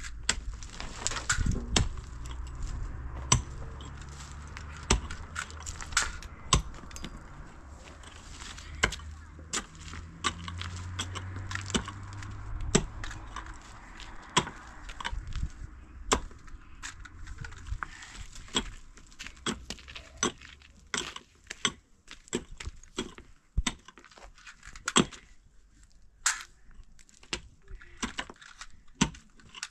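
Hatchet chopping firewood: a long run of sharp, irregular strikes on wood, about one or two a second.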